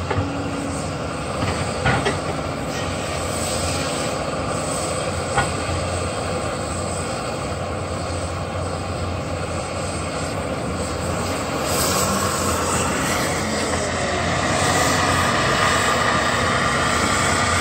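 Diesel engine and hydraulics of a Cat tracked carrier with a Southstar 605 processor head running steadily under load as it loads logs onto a log truck, with a few short knocks in the first few seconds. The machine noise grows somewhat louder from about twelve seconds in.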